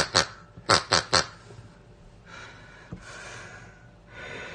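Four short grunt-like sounds in quick succession in the first second or so, then only a soft hiss.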